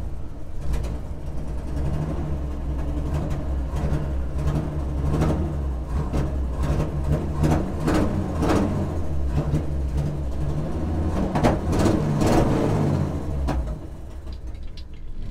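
A 1964 Chevy C10's Chevrolet 230 straight-six, breathing through glass-pack exhaust and dual exit headers, is revved again and again, with sharp pops from the exhaust. It drops back to a quieter idle near the end.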